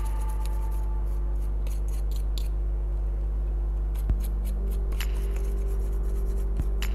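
A steady low electrical hum, with small clicks and scrapes from tools working on the DVD player's circuit board, including a sharper click about four seconds in.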